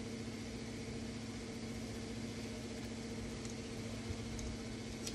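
A steady machine hum with a low, even tone, and a faint click near the end.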